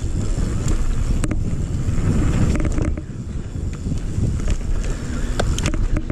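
Wind buffeting the microphone of a camera mounted on a mountain bike riding fast down a dirt trail, a steady low rumble, with the bike rattling and knocking sharply over bumps several times.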